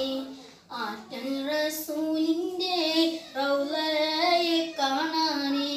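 A boy singing solo and unaccompanied, holding drawn-out notes that bend in pitch.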